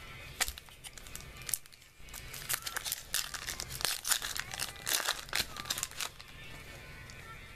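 Foil wrapper of a Bowman baseball card pack being torn open and crinkled by hand: a run of sharp crackles that thickens in the middle and stops about six seconds in.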